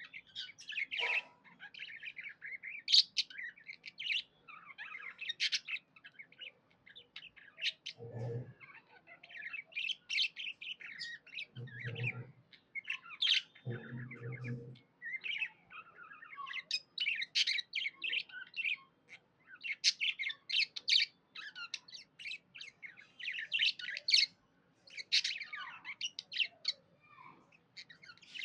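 Budgerigars chirping in a rapid, continuous stream of short high calls, with occasional squawks. Three brief low-pitched sounds come in around the middle.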